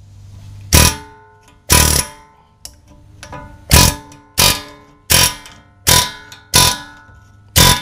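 Hammer blows on a seized, heated front wheel bearing: about eight sharp metal strikes, each leaving a ringing tone, spaced under a second apart. It is the beating half of 'heat and beat' to free the stuck bearing.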